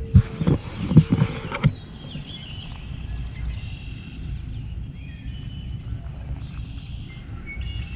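A few heavy thumps and a rustle in the first two seconds, then a steady low wind rumble on the microphone, with birds chirping faintly.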